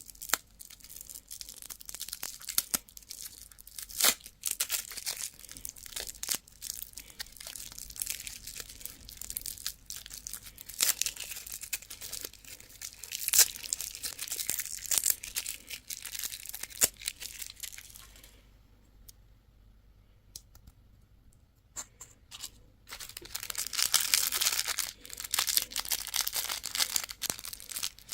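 Plastic candy wrappers being torn open and crinkled by hand, a dense crackle with sharp clicks. It pauses for a few seconds about two-thirds of the way through, then resumes.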